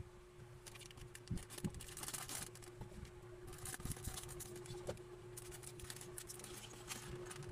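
Faint handling noise from fingers on a small plastic minifigure: scattered light clicks and rustles over a faint steady hum.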